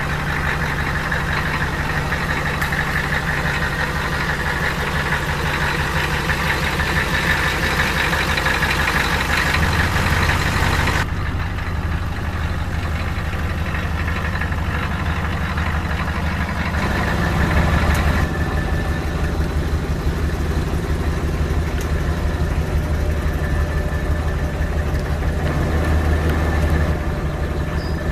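Oldsmobile 350 diesel V8 idling steadily with a rapid, even clatter. Its tone shifts abruptly a few times, heavier in the low end from about ten seconds in.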